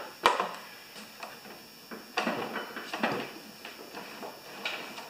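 Clicks and clacks of a new Yard Works snowblower's handlebar controls being worked by hand, the shift lever and the red control levers moved while the shift cables are checked. A sharp click about a quarter of a second in is the loudest, followed by softer scattered clacks and rattles.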